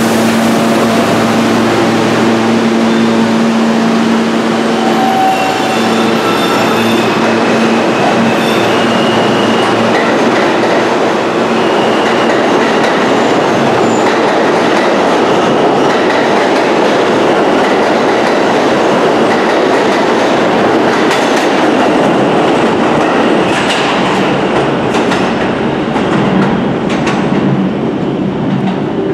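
Alstom-built R160 subway train pulling out of the station: its electric traction motors give a whine that steps upward in pitch as it accelerates. Then the cars rush past with the wheels clicking over rail joints, and the sound fades a little toward the end as the last car leaves.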